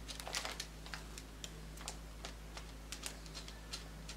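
Light, irregular clicks and taps from a wooden embroidery hoop being handled, with a small cluster of them at the start. A faint steady hum runs underneath.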